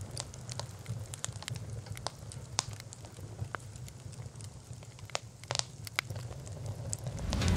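Fire crackling: a low steady roar with scattered sharp pops. It swells louder near the end into a low boom.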